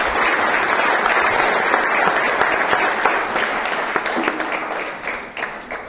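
Audience applauding, thinning out and fading away near the end.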